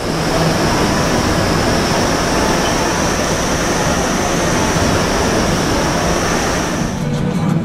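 Steady rushing roar of air with a thin, high steady whine from the RipCord by iFly vertical wind tunnel, its fans holding a flyer aloft; the roar eases off about seven seconds in.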